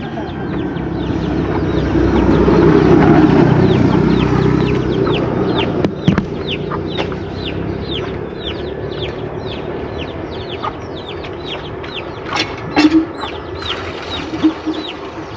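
Chickens: a rapid run of short, high, falling peeps, about three a second, over lower clucking. A low rumble swells up and fades over the first several seconds.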